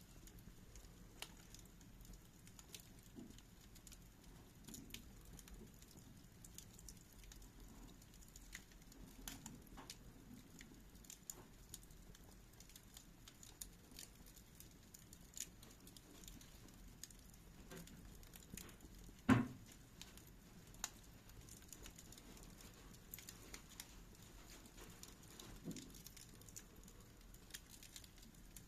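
Wood fire burning in a fireplace, crackling faintly with scattered small pops, and one louder crack about two-thirds of the way through.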